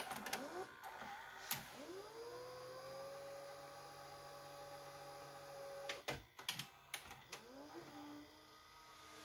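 Aiwa HV-M10SH VHS player's tape transport: a click, then the motor's whine rising in pitch and holding steady for a few seconds. A cluster of mechanism clicks follows, then a second, shorter spin-up near the end.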